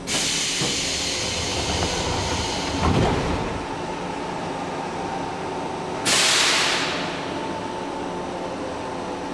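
Compressed air hissing from a JR West Series 103 electric train: a sudden hiss that fades over about three seconds, a dull thump about three seconds in, then a second, sharper hiss about six seconds in that dies away within a second. A faint steady tone runs underneath.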